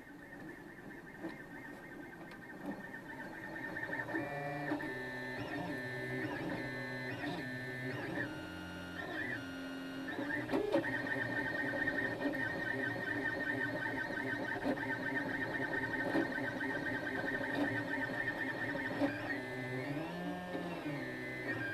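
3D printer running a print, its stepper motors whining as the print head moves, the pitch changing in steps with each move.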